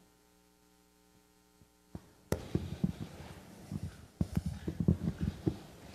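A faint electrical hum from the sound system for about two seconds. Then a click and a run of irregular low thumps and knocks: handling noise from a handheld microphone as it is carried, along with footsteps on a wooden floor.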